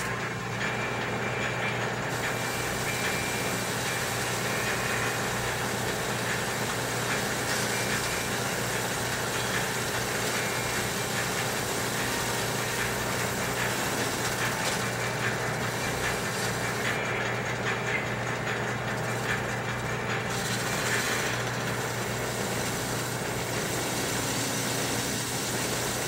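Small metal lathe running steadily, its tool boring out a spinning steel spacer flange, with a steady motor hum under the cutting noise.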